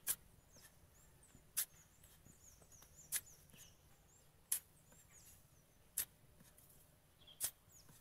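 Metal shovel blade stabbing and scraping into loose beach sand while digging a hole, six sharp strokes about one every second and a half.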